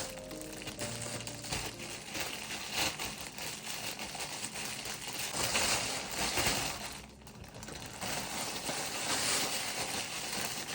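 Close, continuous crinkling and crackling noise, dipping briefly about seven seconds in.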